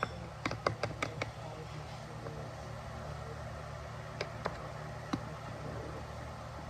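Light clicks and taps of plastic Play-Doh tools being handled on a tabletop: a quick run of about five in the first second and a half, then a few scattered ones, over a steady low hum.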